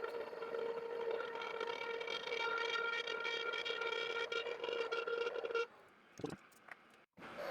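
Schaublin 125 CNC lathe boring out round stock with a buttress threading insert: a steady pitched whine with overtones that stops abruptly near the end, followed by a couple of faint knocks.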